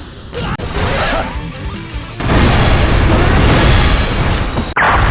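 Loud music mixed with booming, crashing sound effects; it gets much louder about two seconds in and breaks off abruptly near the end before starting again.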